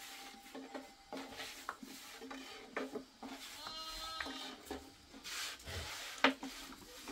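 Long thin rolling pin rolling and knocking against the round board as flatbread dough is rolled out thin, a run of light clicks and scrapes with one sharp knock near the end. A sheep bleats once, a wavering call about four seconds in.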